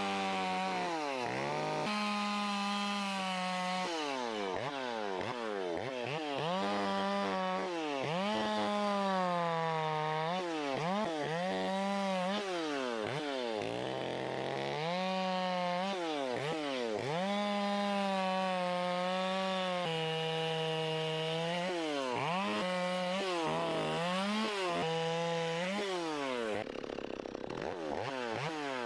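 Chainsaw carving into wood, its engine revving up and dropping back over and over, the pitch rising and falling every second or two. It falls back briefly near the end.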